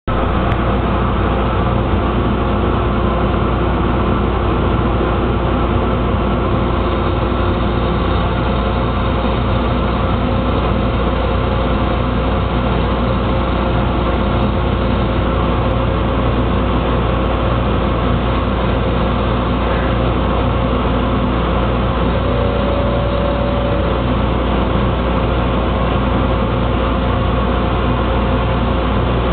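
CNC lathe running: a steady mechanical noise with several constant tones and no breaks or impacts.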